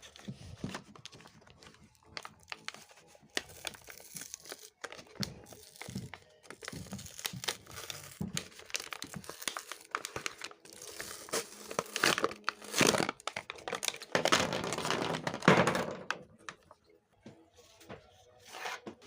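Packaging being torn open and crinkled by hand while unboxing whiteboard markers: irregular rustling, crackling and small clicks, with the loudest stretch of tearing about two-thirds of the way through.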